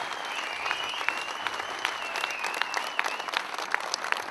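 Outdoor audience applauding, many hands clapping at once, with a high wavering whistle over the clapping for about three seconds.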